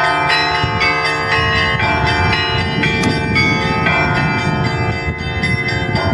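Three bells struck in a steady rhythm, about two strikes a second, each note ringing on under the next. A low rumble runs beneath them through the middle.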